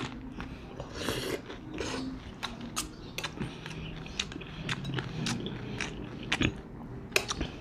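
A person eating lomi egg noodles: chewing close to the microphone, while a spoon and fork click and scrape against the plate many times as he gathers more noodles.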